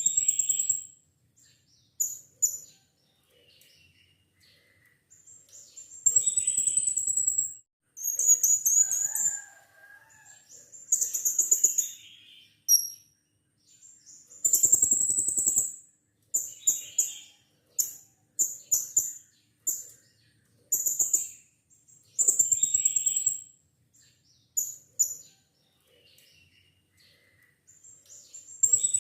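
Blue-crowned hanging parrot (serindit) calling: very high-pitched, shrill, buzzy calls in bursts of about a second or two, repeated many times with short pauses between.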